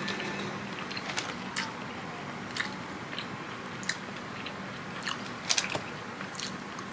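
A person chewing and biting into fried food close to the microphone: scattered crunches and wet mouth clicks, with a cluster of louder crunches about five and a half seconds in.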